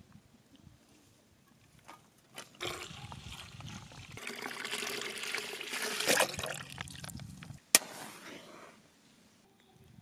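Milk pouring from a plastic pouch into a stainless steel pot, a steady splashing pour lasting several seconds. A single sharp knock comes just after the pour stops.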